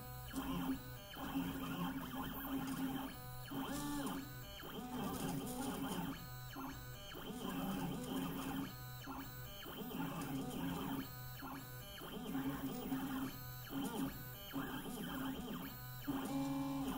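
Stepper motors of a Mostly Printed CNC (MPCNC) pen plotter whining in shifting tones as the machine traces a run of small arcs. The pitch changes with each move, and there are short pauses between moves.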